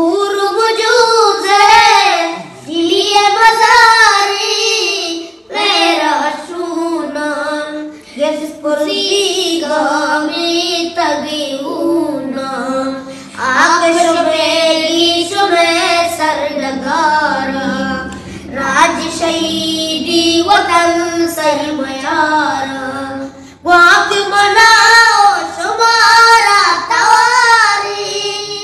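A high voice singing a song, in phrases a few seconds long separated by short breaths.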